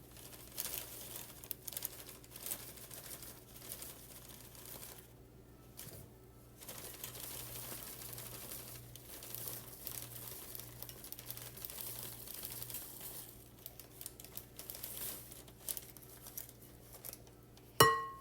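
Pancake mix packaging crinkling and rustling as the mix is measured out, with scattered small clicks and one sharp, ringing clink near the end.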